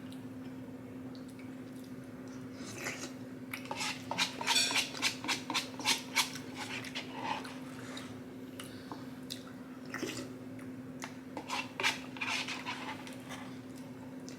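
Close-miked eating sounds: chewing, wet mouth clicks and smacks in two stretches, from about three seconds in and again around ten to thirteen seconds, over a steady low hum.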